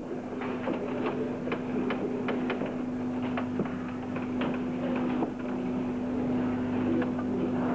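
Steady electrical hum with scattered faint clicks and ticks, from an old videotape recording, with no speech.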